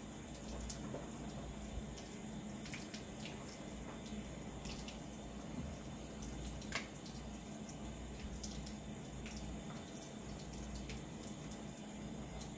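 Kitchen faucet running a steady thin stream into a sink, with scattered small clicks and splashes from a wet bird being handled under it.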